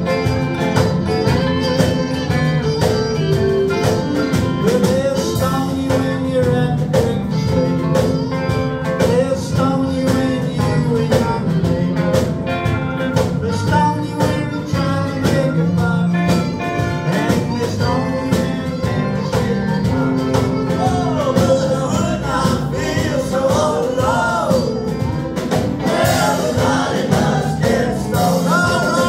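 Live band playing with a steady drum-kit beat, electric guitars and fiddle, with singing over the top.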